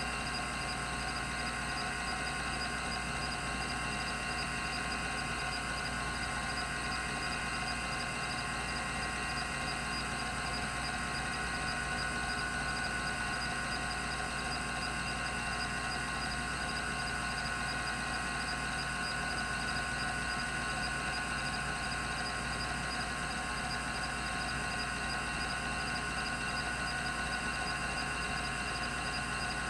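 Rodime RO352 3.5-inch hard drive spinning steadily at 3600 RPM: an even whine made of several fixed high tones over a low hum, with no head-seek clicks.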